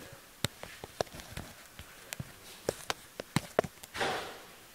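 A run of irregular sharp clicks from the switches and relays of an electric Formula SAE race car being worked through its start-up sequence, with the loudest clicks near the end. Just before the end comes a short rustling burst.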